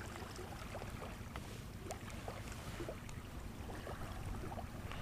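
Low, steady wind rumble on the microphone, with a few faint small ticks scattered over it.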